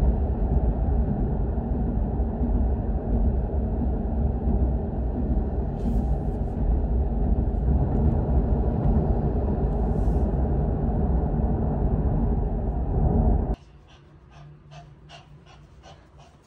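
Steady low rumble of a car in motion, heard inside the cabin. It cuts off sharply near the end, giving way to a small dog panting rapidly.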